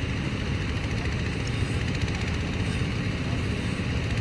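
Heavy diesel machinery engine running steadily, a continuous low rumble with no change in speed.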